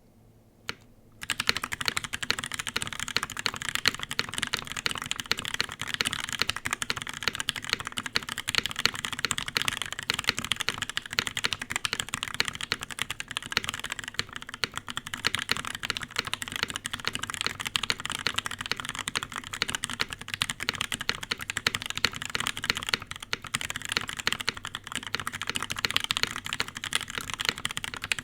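Continuous fast typing on a Noxary 378 mechanical keyboard with Pewter (Tribosys 3204) switches in a gasket-mounted polycarbonate plate. A single keystroke comes just under a second in, then steady typing starts about a second later.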